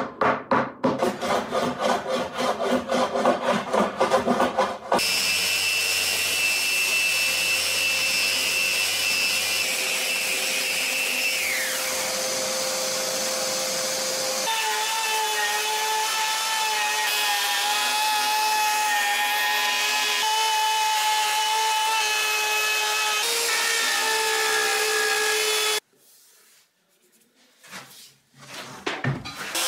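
A wooden mallet rapidly tapping a glued wood patch into a slab tabletop. Then a random orbital sander runs steadily over the top for about twenty seconds. After a short quiet gap, a router motor starts to spin up at the very end.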